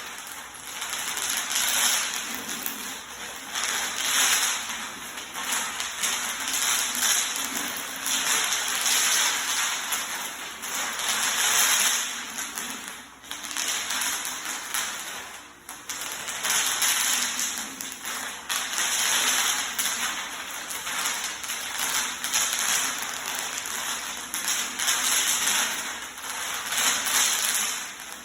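Bubble wrap popping under hoverboard wheels: a dense, rapid crackle of many small pops, swelling and fading in waves every second or two.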